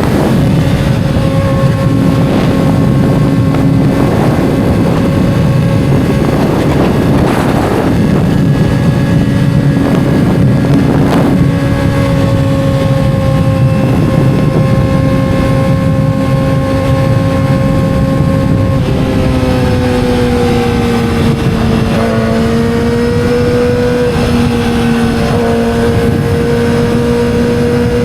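2007 Yamaha R6's inline-four engine running at steady, fairly high revs, its pitch holding level, then dropping slightly about two-thirds of the way through and settling.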